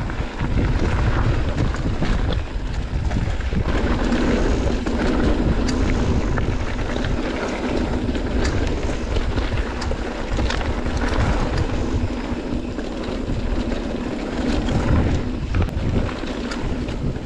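Mountain bike riding down a trail: wind buffeting the microphone over the rumble of tyres on the trail surface, with many sharp clicks and rattles from the bike.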